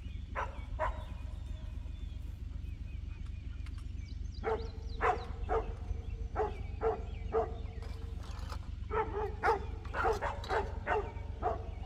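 Dogs barking: two barks at the start, a handful more from about four seconds in, then a quicker run of barks from about nine seconds in. A steady low wind rumble on the microphone runs underneath.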